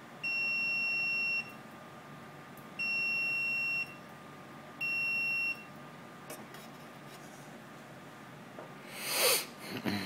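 Multimeter continuity beeper sounding three times as the test probes bridge the pins of an amplifier selector switch: three steady high-pitched beeps, the first about a second long and the last shorter, each showing a closed contact between the pins probed. A loud rustle near the end.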